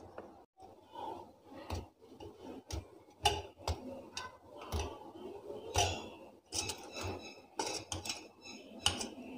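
Spoon clinking and scraping against a steel bowl and a plate in irregular knocks, as fried malpuas are pushed off the plate into sugar syrup.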